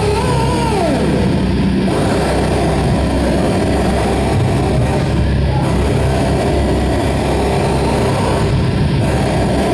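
A live band playing loud and heavily distorted, with guitars and drums merged into one dense, steady wall of sound. A high note slides down in the first second.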